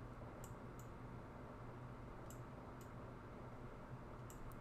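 Computer mouse buttons clicking: a few short sharp clicks, mostly in quick pairs, over a faint steady low hum.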